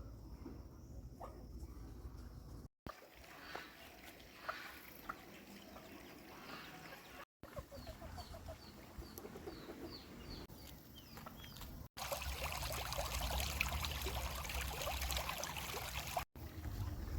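Fowl clucking and chirping in short repeated calls, across several clips cut together, with a louder, noisier stretch in the last few seconds.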